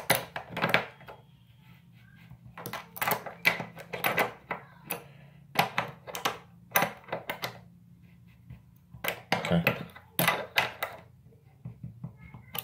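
Adjustable wrench clicking and knocking against a faucet cartridge nut as it is tightened down in short turns, the jaws lifted off and reset each time. The sound is bunches of sharp metallic clicks, a few at a time, with short pauses between the bunches.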